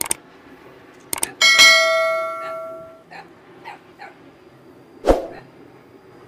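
Subscribe-reminder sound effect: mouse clicks followed by a bright bell ding that rings out and fades over about a second and a half. A sharp knock comes about five seconds in.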